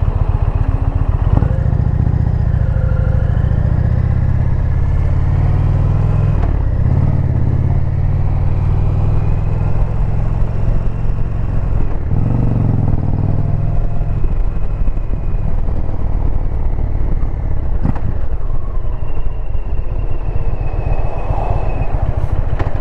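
Indian Pursuit's V-twin engine running steadily under way on the road, its note shifting for a moment about halfway through as the speed changes.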